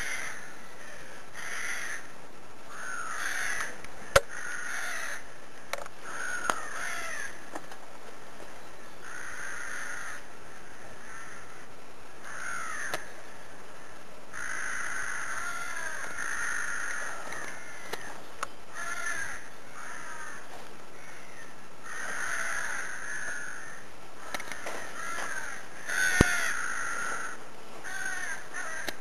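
Crows cawing over and over, several calls overlapping at times, with a couple of sharp clicks about four seconds in and near the end.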